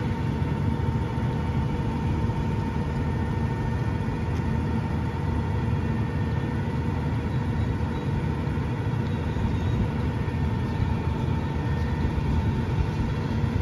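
Mack LR rear-loader garbage truck's diesel engine running steadily, a low, even engine sound with a thin steady whine above it.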